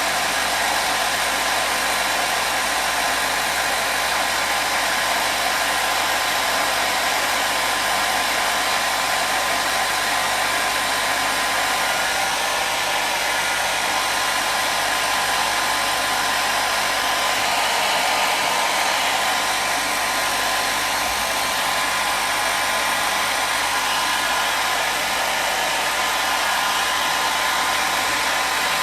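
Hair dryer blowing: a steady, unbroken rush of air with a faint motor whine in it.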